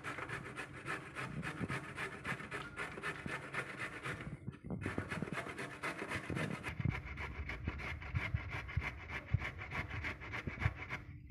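Peeled carrots grated by hand on a stainless-steel box grater standing in a steel bowl: a steady rasping rhythm of several strokes a second, with a brief pause about halfway through.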